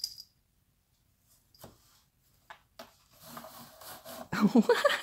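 Cat rubbing and scratching against a corrugated cardboard scratch pad: scattered taps, then a rustling scrape that grows louder. A brief voice-like sound near the end.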